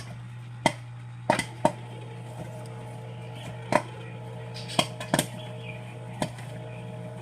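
Popcorn kernels popping in a Nostalgia Electrics kettle popcorn machine, about seven scattered pops as the popping dies down, over the machine's steady hum.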